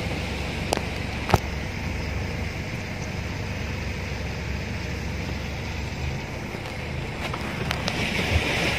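Car engine and road noise heard from inside the cabin as the car creeps through floodwater, with a low, steady rumble. Two sharp clicks come about a second in, and a hiss of water washing against the car builds near the end.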